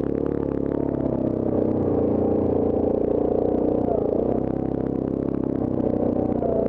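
Yamaha Grizzly ATV's single-cylinder engine running steadily as it rides over a rocky dirt trail, with a small dip in engine pitch about four seconds in. Short clicks and rattles from the machine and stones under the tyres run throughout.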